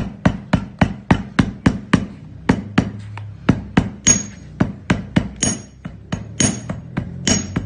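Hammer tapping a glued leather edge against a hard block in a quick steady series, about three to four blows a second. Some blows carry a short metallic ring from about four seconds in. The glued seam is being hammered down so the glue grips.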